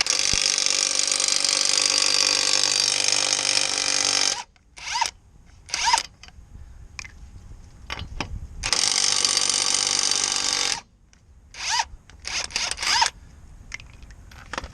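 Impact wrench hammering on lug nuts, in a long run of about four seconds and another of about two seconds. In between and after come several short bursts as it spins nuts off. It is not very powerful on lug nuts.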